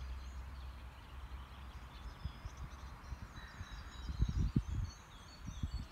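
Outdoor ambience of small birds chirping and singing, over a low wind rumble on the microphone that buffets in a cluster of dull thumps about four seconds in.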